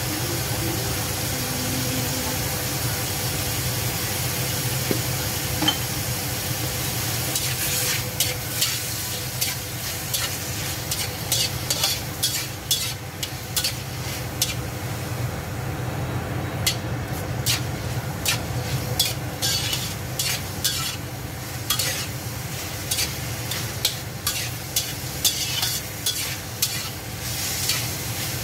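Shrimp sizzling in hot oil in a frying pan. From about eight seconds in, a slotted metal spatula stirs them, scraping and tapping against the pan in quick irregular strokes.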